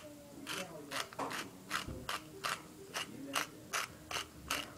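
Twist-top spice grinder of cinnamon sugar being turned by hand, its ratchet clicking in a steady rhythm of about two to three clicks a second.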